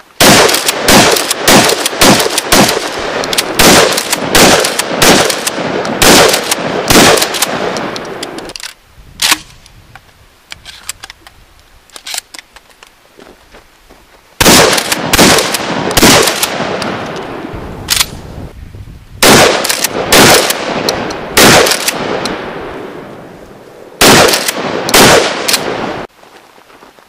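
Short-barrelled 12-gauge Remington 870 Express Magnum pump shotgun fired in quick strings of shots, four strings with pauses between, the pump action worked between shots. The reports come close together within each string, and each string trails off in echo.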